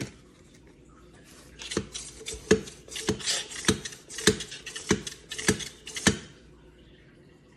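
Hand-pumped plastic batter mixer-dispenser: the plunger is driven up and down through cake batter in its jug, making a quick run of clacks, about two to three a second. The clacks start about two seconds in and stop about six seconds in.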